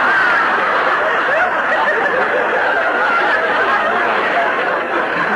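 Studio audience laughing at a punchline: a long wave of laughter from many people, holding steady throughout.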